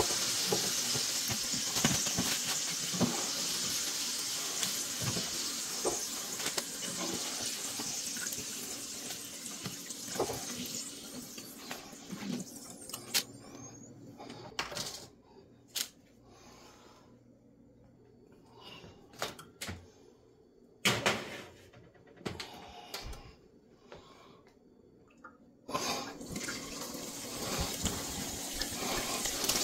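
Hot oil sizzling in a frying pan as crinkle-cut potato chips fry and are lifted out with a slotted spoon. The sizzle dies down to faint crackles and scattered pops once the pan is empty, then starts up again sharply near the end when a piece of potato is dropped into the oil.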